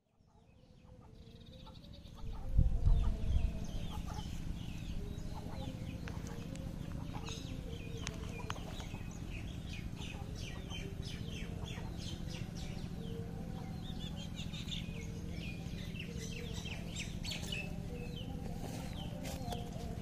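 Chickens clucking with many short, high chirps over them and a steady low hum beneath, fading in at the start. A brief, loud low rumble on the microphone comes about two and a half seconds in.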